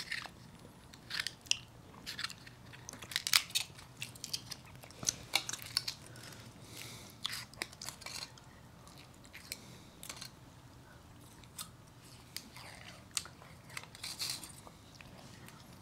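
Close-up chewing and biting of liqueur-filled chocolate: irregular crunches and sharp clicks, busiest in the first six seconds and again near the end.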